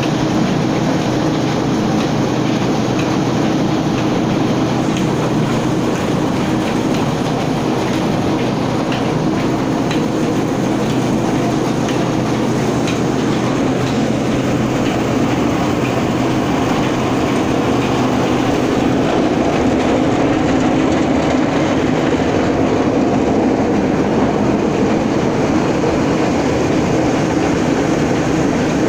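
Belt-driven stone flour mills (atta chakki) running together, with a loud, steady mechanical rumble and a low hum from the motors, flat belts and grinding stones.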